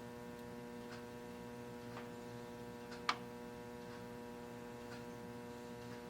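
Steady electrical hum in a machine shop, with faint ticks about once a second and one sharper click about three seconds in.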